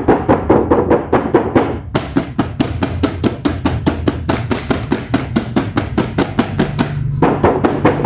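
Background music with a fast, steady beat of short tapped notes.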